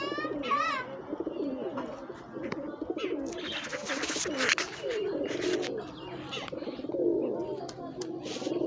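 A flock of domestic pigeons cooing, many low coos overlapping one another throughout. A brief higher call comes about half a second in, and a few short noisy bursts come around the middle.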